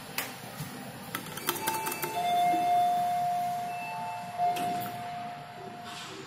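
Electronic elevator signal tones: a steady tone held for about four seconds, with short higher beeps before and during it. Scattered clicks and knocks come from buttons and handling.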